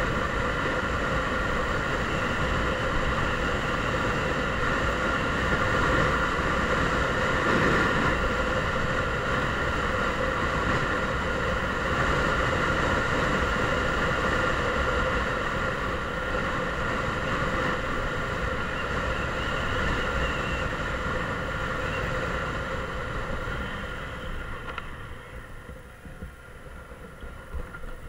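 Mondial Drift 125 motorcycle engine running steadily as the bike rides along, with wind and road rush on the microphone. About 24 seconds in, the engine sound drops away as the bike slows.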